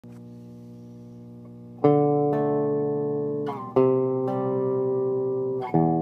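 Electric guitar, a Jazzmaster with Seymour Duncan Quarter Pound pickups, played through the Driving Notion pedal into a Harmony 305a amp and a Hiwatt 2x12 cabinet. A faint ringing note is followed by three loud chords struck about two seconds apart, each left to sustain.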